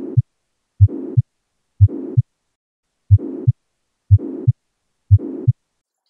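Heart sounds of mitral regurgitation: about one beat a second, each a low first heart sound followed by a pansystolic murmur that runs right up to a low second heart sound.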